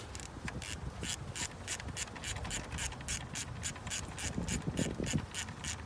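Hand ratchet clicking rapidly, about five clicks a second, as it is worked back and forth on a bolt of a BMW N54 oil filter housing.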